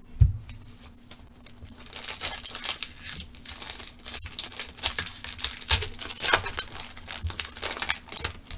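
A single thump just after the start, then a foil trading-card pack from Panini Threads football being torn open, its wrapper crinkling and crackling in the hands for about six seconds.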